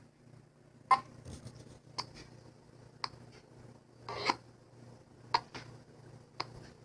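Dell Inspiron 3531 laptop's speakers giving irregular sharp clicks and pops, about one a second, over a faint steady low hum: the laptop's sound fault.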